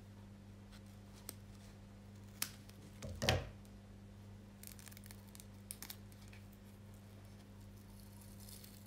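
Faint handling of a rolled diamond-painting canvas and its plastic packaging: a few light clicks and a soft knock about three seconds in, over a steady low hum.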